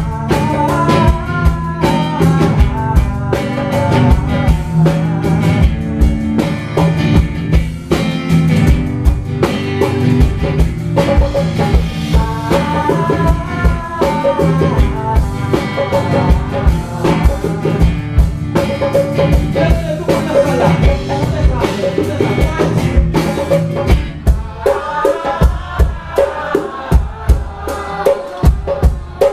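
Live konpa band playing: drum kit with rimshots, guitar and bass in a steady groove, the low bass dropping away near the end while drums and guitar carry on.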